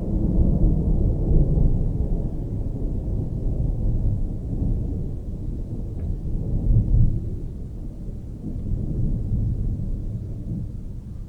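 Distant thunder rumbling low and rolling, swelling right at the start and again about seven seconds in, with a single faint crackle about six seconds in.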